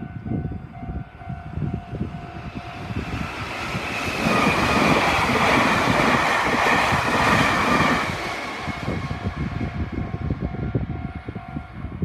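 Meitetsu rapid limited express train passing over a level crossing: loudest from about four to eight seconds in, then fading away. Throughout, the crossing's warning bell rings steadily, and it stops near the end.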